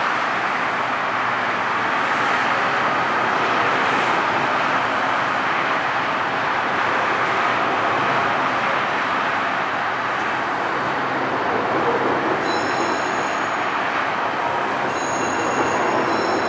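Washington Metro 7000-series train pulling out of the station: a steady, loud rumble of wheels on rail and running gear. About three-quarters of the way through, a high-pitched, steady ringing whine joins in.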